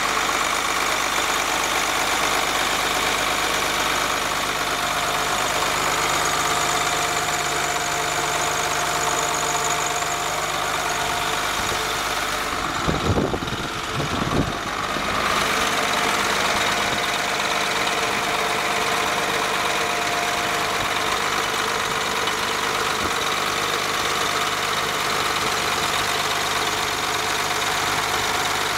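Engine of a 1997 Freightliner E-One ambulance/quick-attack truck idling steadily at an even pitch. About halfway through there are a couple of brief low rumbles.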